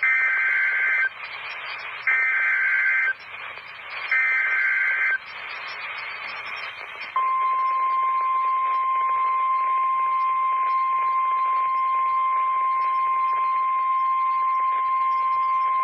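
NOAA Weather Radio EAS activation. Three one-second screeching bursts of SAME digital header data come about a second apart. About seven seconds in, the single steady 1050 Hz Warning Alarm Tone starts and holds, all over radio hiss.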